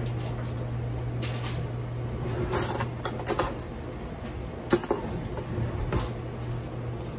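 Kitchen clatter: a handful of sharp clinks and knocks of kitchenware being handled, the loudest a little past halfway, over a steady low hum.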